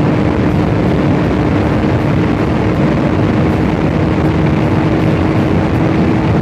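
KTM RC 390's single-cylinder engine held at high revs at about 150–160 km/h, a steady drone over heavy rushing noise as the bike slowly gains speed.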